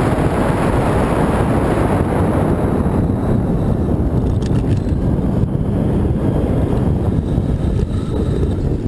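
Wind buffeting the microphone of a handlebar-mounted action camera on a mountain bike riding down a paved road, a loud steady rumble mixed with tyre noise on the asphalt. A few faint clicks come about halfway through.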